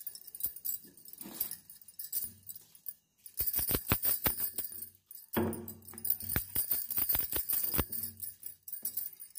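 Glass bangles on the wrist jingling and clinking in quick runs as the hands work a rolling pin back and forth over puri dough, in two spells with a short pause near the middle.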